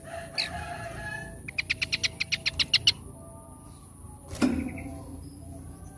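A songbird calls, then sings a fast run of about a dozen sharp, evenly repeated notes lasting about a second and a half. A sharp knock comes a little after the midpoint.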